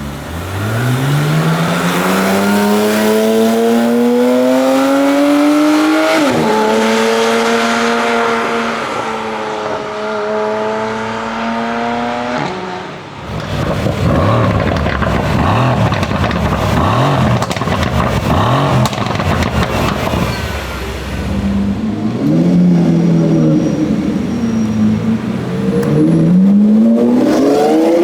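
Performance car engine accelerating hard: its pitch climbs for about six seconds, drops with an upshift and holds in the next gear. About halfway through the sound changes suddenly to a rougher, noisier engine, and near the end the revs climb again.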